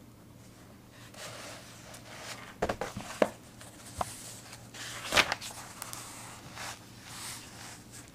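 Close-up handling of paper and pen: soft paper rustling with a few sharp taps and clicks, the loudest about five seconds in.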